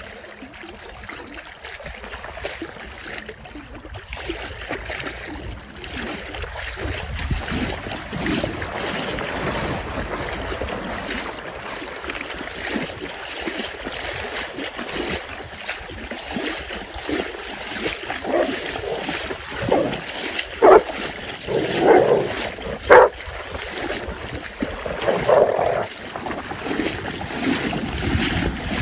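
Water sloshing and splashing as golden retrievers wade and swim through shallow water at the shore, with a few short, loud dog vocalisations clustered about two-thirds of the way through.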